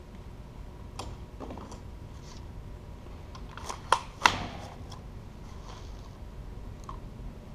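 A few sharp metal clicks and knocks from a winch and hand tools being handled on a workbench, the loudest two close together about four seconds in, over a low steady hum.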